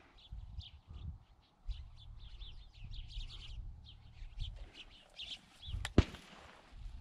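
Small birds chirping in quick, repeated short calls, over low rustling and handling noise as the wearer moves through dry reeds and scrub. A single sharp crack about six seconds in is the loudest sound.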